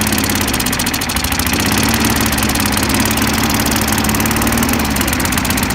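Lawn mower engine fitted with a GEET reactor in place of a carburettor, running steadily at operating temperature on a water, oil and gasoline mix.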